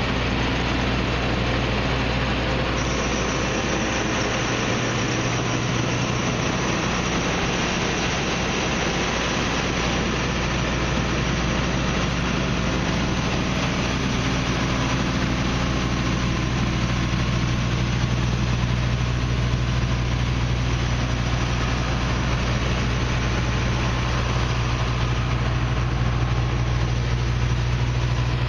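Claas Tucano 430 combine harvester's diesel engine running steadily at a constant speed, with a low even hum.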